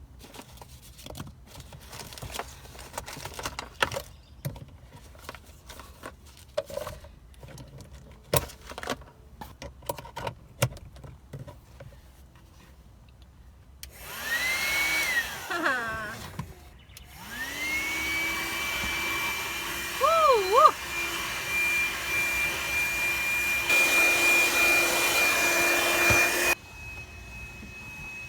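Scattered knocks and rustles of handling, then a 12V handheld car vacuum's motor starts with a rising whine about halfway through, stops briefly and starts again, running steadily with a high whine. Its pitch dips twice around 20 s, it grows louder for a few seconds, and near the end it suddenly drops to a quieter whine.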